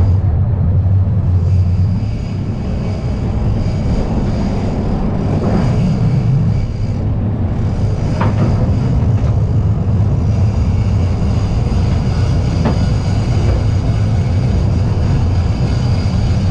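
A boat's engine running steadily, a continuous low drone, with a few faint knocks.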